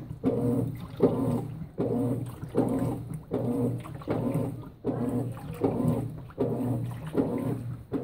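Consul 16 kg top-load washing machine agitating a soaked comforter: its motor hums in short strokes, just over one a second, with a brief pause each time the agitation reverses direction.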